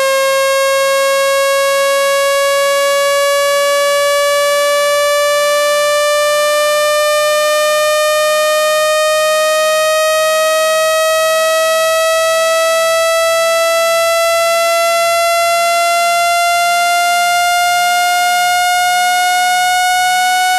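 Synthesized buzzy tone at a steady loudness, its pitch gliding slowly and evenly upward: a speaker-cleaning tone sweep meant to vibrate water out of a phone speaker.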